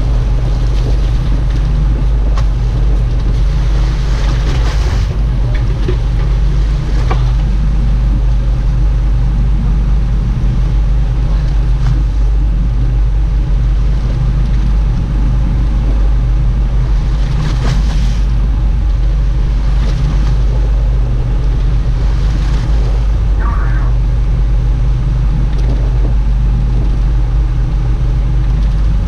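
A fishing boat's engine running steadily at a constant pitch, a loud low drone with a few brief swells of water or wind noise.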